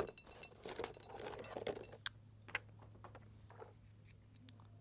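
Quiet clicks and light knocks of paint tubes and art supplies being picked through, scattered over the first three and a half seconds, with a steady low hum underneath.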